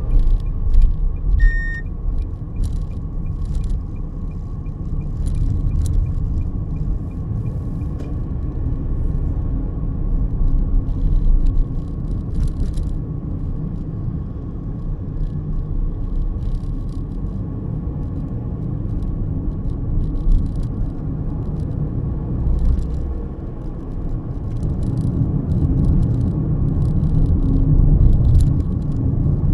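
Car driving on town streets, heard from inside the cabin: a steady low road and engine rumble. A short beep sounds about a second and a half in, and a faint even ticking runs through the first several seconds.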